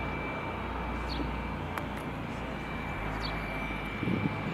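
A high-wing light single-engine plane landing, its engine a steady distant drone. A few short bird chirps come over it, and gusts of wind buffet the microphone near the end.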